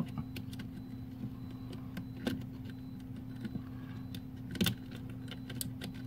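Small plastic clicks and scrapes as a pry tool works a desoldered mechanical key switch loose from the keyboard plate, with a sharper click a little past two seconds in and another near five seconds. A steady low hum runs underneath.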